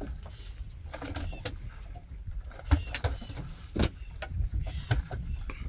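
Small waves slapping against a boat's hull in irregular knocks, over a low wind rumble on the microphone.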